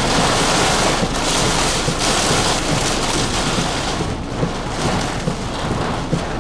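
Severe thunderstorm wind and rain buffeting a parked vehicle, heard from inside the cabin: a loud, steady rush that swells and eases with the gusts.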